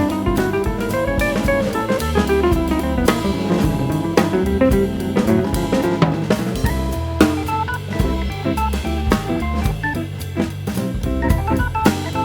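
Background music with a drum kit keeping a steady beat under a bass line and melodic instrumental runs.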